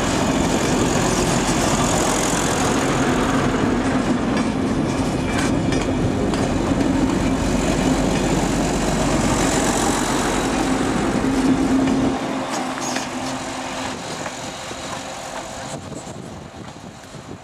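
Two coupled Alsthom diesel railcars passing close by: engines running with a steady hum over the noise of the train on the rails. About twelve seconds in the sound drops and then fades as the railcars draw away.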